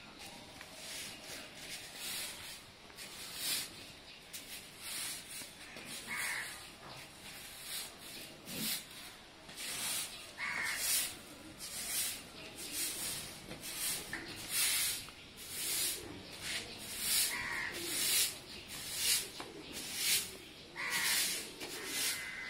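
Soft grass broom swept in repeated strokes over a concrete courtyard floor, a brushing swish about once a second. A crow caws a few times in the background.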